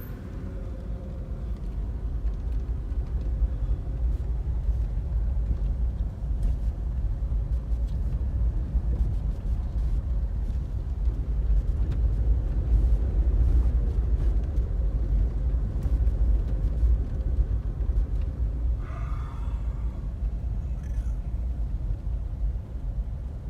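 Car driving: a steady low rumble of engine and road noise that swells and then eases off.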